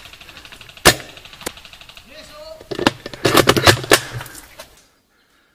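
Airsoft gunfire: single sharp cracks about a second in and half a second later, then a rapid cluster of shots between about three and four seconds in, with a brief voice just before it. The sound cuts off abruptly near the end.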